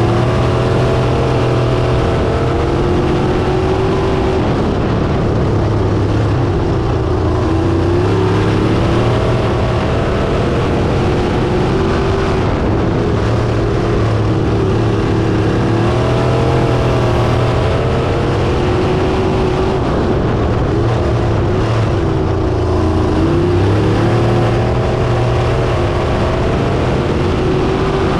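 Crate sprint car's V8 engine heard from on board at racing speed, its pitch dropping as the driver lifts into each corner and climbing again on the throttle down the straights, lap after lap.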